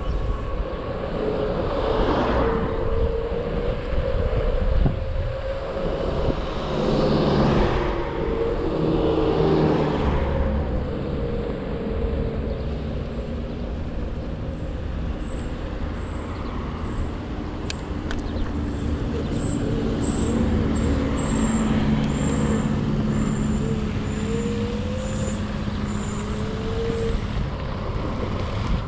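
Xiaomi Mi 1S electric scooter riding: the hub motor gives a thin whine that wavers up and down with speed, over a steady rumble of tyres and wind. Road traffic swells past a few times in the first ten seconds.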